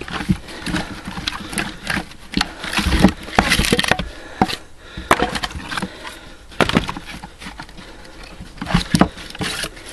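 Split firewood knocking and clattering as pieces are pulled off a log round, with sharp wooden cracks where the Leveraxe splitting axe strikes the wood and splits off more pieces, several times.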